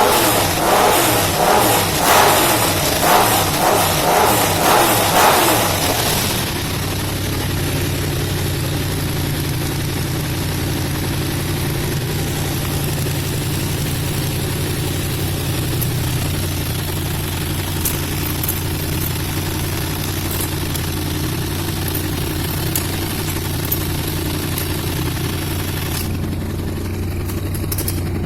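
Yamaha MT-07's parallel-twin engine breathing through an aftermarket stainless full exhaust, blipped in a series of quick revs for about the first six seconds, then settling to a steady idle.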